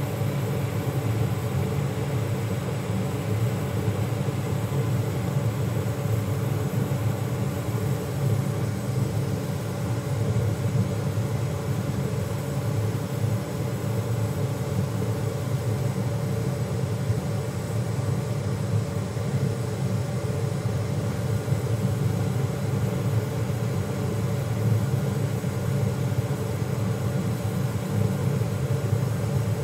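A steady low hum with an even rushing noise, unchanging throughout, with no distinct knocks or clicks.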